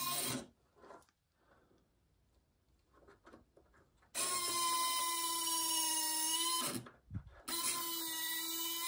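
Electric landing-gear retract on a 3D-printed RC C-17 main gear unit, whining as its motor drives the gear through its swing and twist. One run ends just after the start; after about four seconds of quiet with a few faint clicks, it runs for about two and a half seconds, stops briefly, and starts again about a second later.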